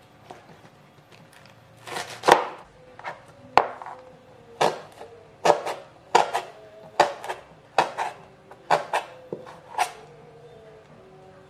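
Kitchen knife chopping spring onions on a plastic cutting board: a run of crisp knocks, roughly two a second, starting about two seconds in and stopping shortly before the end.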